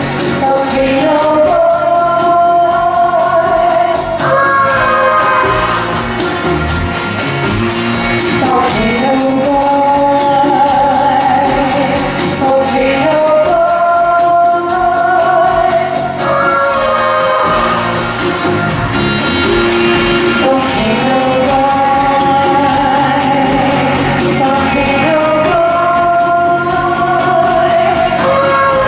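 Live band playing a song, with long held sung notes over a steady beat.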